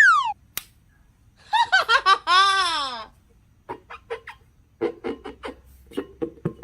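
A short falling whistle-like glide, then a high-pitched laugh: quick bursts of laughter ending in one long drawn-out laugh. A run of short squeaky pulses follows.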